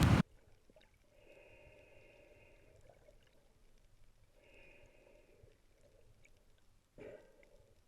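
Near silence with a faint muffled hum twice and a short soft sound near the end.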